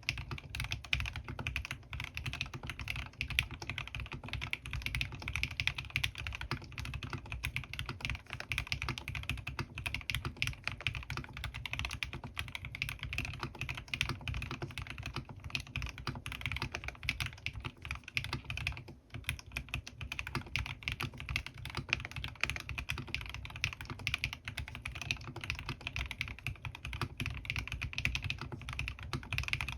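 Continuous fast typing on a Bahm Studio Droplet custom mechanical keyboard with lubed Gateron North Pole linear switches, PBT keycaps and Krytox-lubed stabilizers, keystrokes running together with a short pause a little past halfway.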